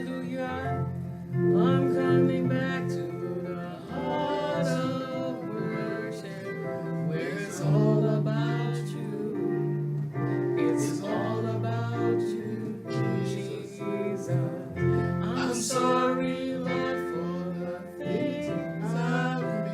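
Worship music: guitar and sustained low instrument notes with a voice singing long, gliding notes.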